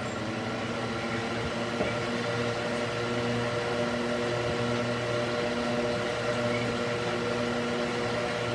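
Cooling fan mounted in a wooden box running steadily: an even rush of air with a constant hum of several tones.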